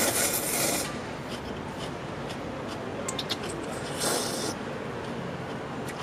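A mouthful of instant ramyeon noodles slurped hard from a paper bowl, then a short slurp of broth from the bowl's rim just after four seconds in, with a few small wet mouth clicks between.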